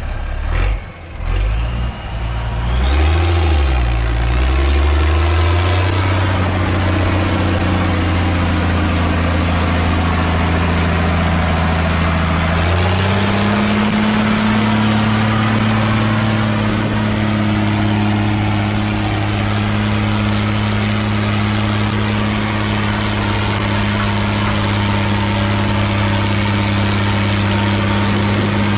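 Ursus tractor's diesel engine pulling under load. A few knocks in the first two seconds, then the engine revs up and settles to a steady run, and rises to a higher, steady speed at about 13 seconds.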